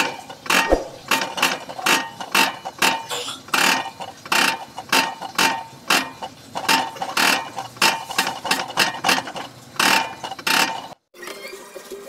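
Diesel injector nozzle of a Komatsu 3D84 engine being pop-tested on a hand-lever nozzle tester: each pump of the lever makes it pop and spray with a sharp chatter, about two or three times a second. The sound stops abruptly near the end.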